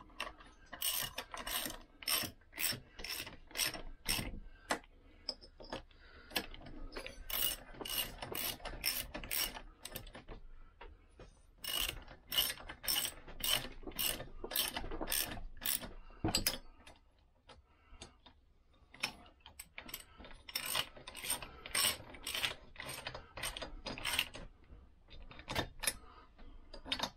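Socket ratchet clicking in runs of quick, even clicks, about three a second, with short pauses between runs, as 13 mm cylinder head nuts on a Lambretta engine are run down loosely before torquing.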